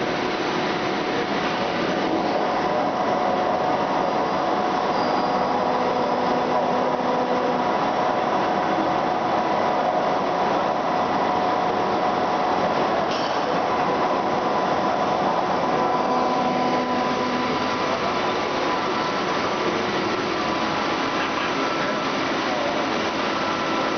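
1993 Biglia B111/S3 sliding-head CNC lathe running a program in automatic, drilling with coolant flooding the work: a steady hiss and machine hum with several steady whining tones. Lower tones come and go as the cycle moves, and there is one short click about halfway through.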